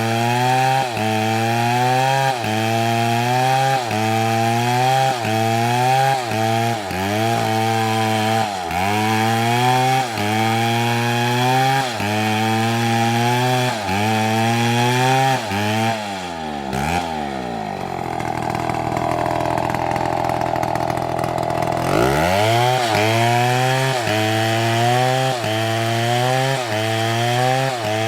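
Chainsaw engine running hard under cutting load, its pitch dipping about once a second as the chain bites. Past the middle it slows to a lower, steady note for about five seconds, then revs back up and carries on cutting.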